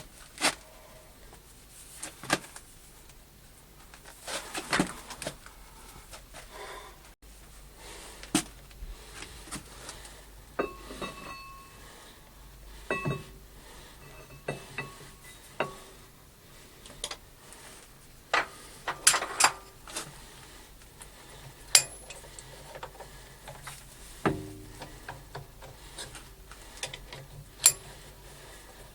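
Scattered metal clinks and knocks from tools and steel parts being handled at a lathe, a few of them ringing briefly.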